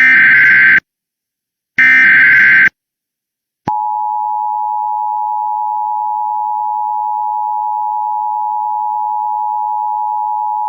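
Emergency Alert System SAME header: two bursts of screechy digital data tones, each about a second long and a second apart. About four seconds in, the steady two-tone EAS attention signal starts and holds, announcing the warning message to follow.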